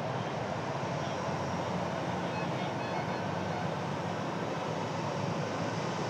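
Steady rumble and hiss of an Airbus A320's jet engines running across the airfield, holding an even level with no spool-up.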